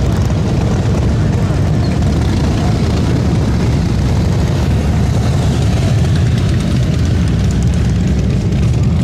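Cruiser motorcycle engines rumbling steadily as the bikes ride slowly past at low speed.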